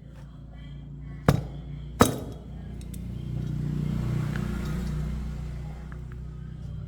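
Two sharp clinks, like hard metal or glass objects striking, less than a second apart, over a steady low hum; a louder rushing noise swells and fades after them.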